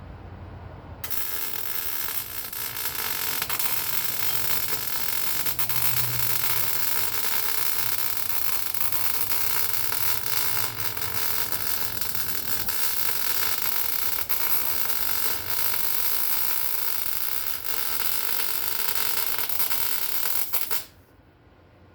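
Welding arc laying one long continuous bead on the steel cross member: a steady crackling hiss that starts abruptly about a second in and cuts off sharply near the end.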